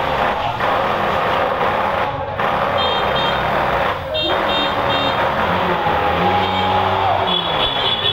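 Loud steady mechanical din with repeated groups of short high-pitched electronic beeps, three or so at a time. A humming engine-like tone comes in past the middle, holds, then falls away near the end.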